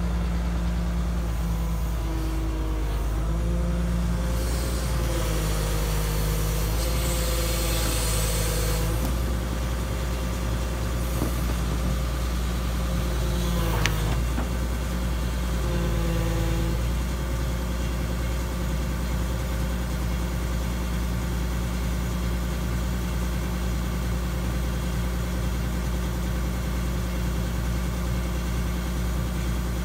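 Link-Belt 3400 excavator's diesel engine running under load, with hydraulic whine tones that shift and step in pitch as the controls are worked for the first half, then settle steady. A hiss rises about four seconds in and lasts a few seconds, and a sharp click comes near the middle.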